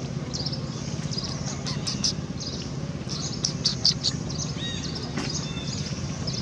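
Small birds chirping in short bursts of high notes, busiest around the middle, over a steady low hum.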